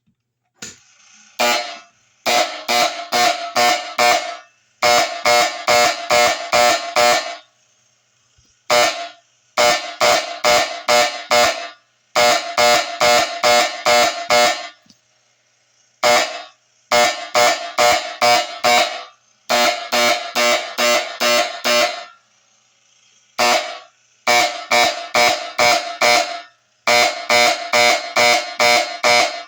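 Benjamin Electric vibrating projector horn, driven by a coded Edwards pull station, sounding fire alarm code 1-5-6. It gives short buzzing blasts in groups of one, then five, then six, with a pause after each group, and the pattern repeats round after round.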